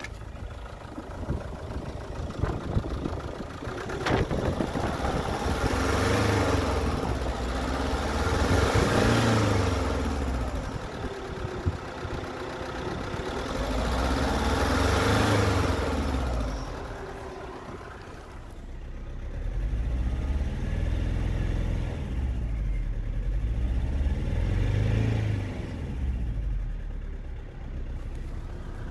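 Chevrolet Nubira's 2.0 Z20S four-cylinder turbodiesel running and being revved up and let back down to idle several times.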